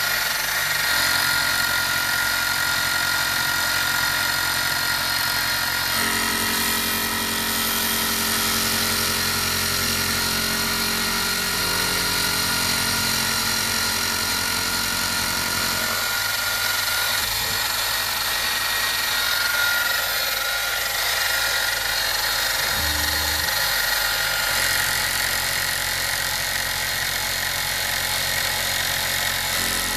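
CNC-converted mini milling machine running: a steady spindle motor whine, with a lower motor hum that changes pitch in steps several times as the axes move.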